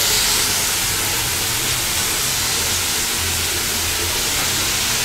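Strips of bottle gourd peel and potato frying in oil in a non-stick kadai, giving a steady sizzling hiss.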